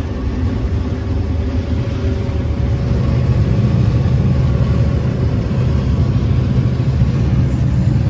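Combine harvester running while harvesting corn, heard from inside the cab: a steady low rumble of engine and machinery, a little louder from about three seconds in.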